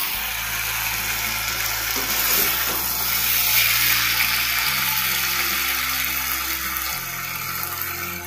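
Dragon paneer (fried paneer with onion and capsicum in a soya and schezwan sauce) sizzling steadily in a hot frying pan. Under it is background music of held low notes that change every couple of seconds.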